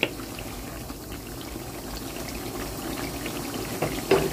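Garlic cloves simmering in mustard oil and tamarind sauce in a frying pan, bubbling steadily. There is a light knock of the wooden spoon at the start, and a couple of short knocks near the end.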